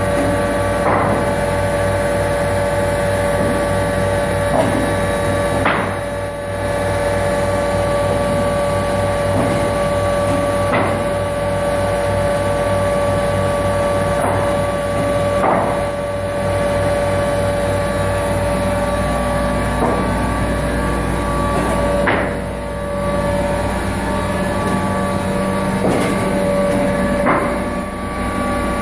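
Weinig Hydromat eight-spindle four-sided planer running with a steady whine and hum. Short knocks come every few seconds as boards are fed through it.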